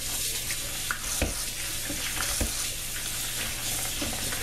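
Wet raw peanuts in their shells rummaged and sorted by hand in a plastic bowl in a stainless-steel sink, with a few short clicks and knocks of shells over a steady hiss.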